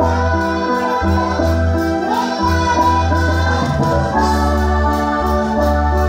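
Church hymn played on an electronic organ, its bass sounding in long notes of about a second each, with a voice singing over it.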